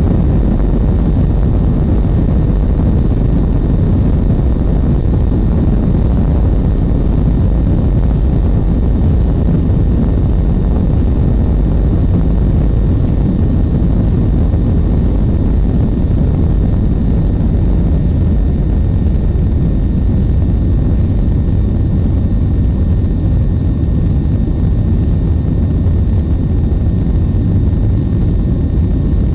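Jet airliner's engines running at take-off thrust: a loud, steady noise, heaviest in the low end, with faint thin whining tones above it.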